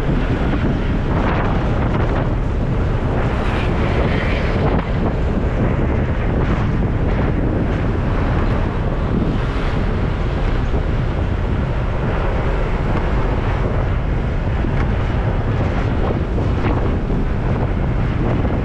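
Wind buffeting an action camera's microphone while riding a motor scooter: a loud, steady low rumble, with the scooter and passing traffic running underneath.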